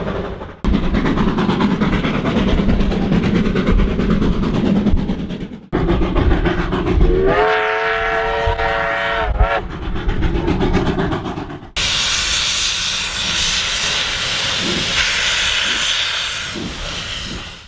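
NZR Ab-class 4-6-2 steam locomotive Ab 608 running under steam with its train, with rail and steam noise, heard in three short clips with hard cuts between them. In the middle clip its whistle blows for about two seconds, rising into pitch as it starts. The last clip fades out at the end.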